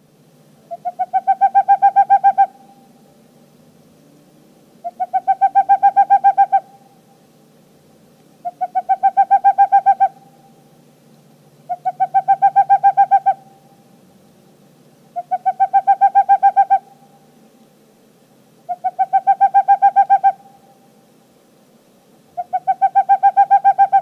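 Boreal owl (Tengmalm's owl) singing: seven rapid trills of hoots at one steady pitch, each about a second and a half long and swelling in loudness, repeated every three to four seconds.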